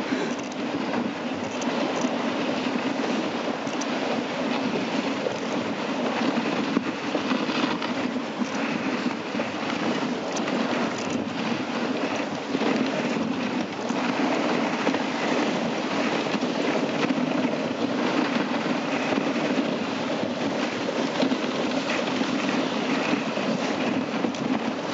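Dog sled running over snow behind a husky team: a steady scraping hiss of the runners with many small knocks and rattles from the sled.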